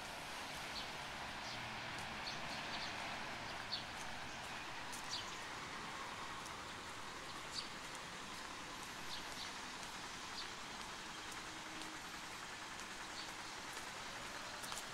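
Outdoor city street ambience: a steady rushing hiss of traffic and surroundings, with faint short high chirps or ticks scattered through.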